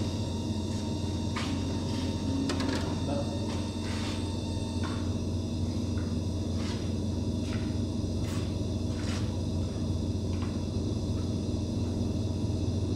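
A steady low mechanical hum, with scattered light clicks and taps over it.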